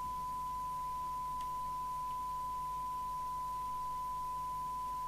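A steady, unwavering 1 kHz test tone from a Major 3000 FM CB radio's receiver audio. The set is demodulating a signal generator's carrier at 100 microvolts while its S-meter is being calibrated during alignment.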